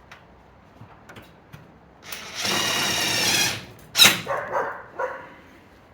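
Cordless drill driving a screw into the greenhouse frame, its motor running steadily for about a second and a half, followed by a sharp click about four seconds in.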